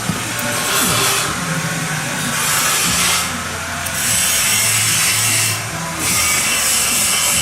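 Hand tool cutting in slow rasping strokes, about one every one and a half seconds, over a steady low hum.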